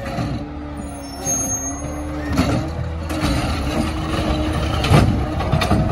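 CNG Peterbilt 520 garbage truck with a McNeilus ZR automated side loader working: the engine runs steadily under a droning whine. A short air hiss comes about a second in, and a few sharp clanks follow, the loudest late on.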